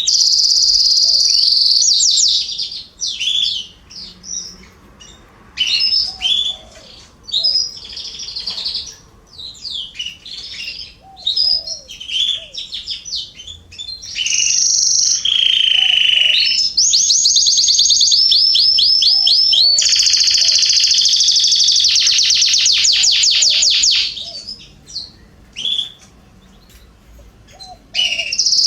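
Canaries singing: long trilled phrases and fast rolling runs of notes, with gaps of softer scattered chirps. The longest, loudest song comes in the middle.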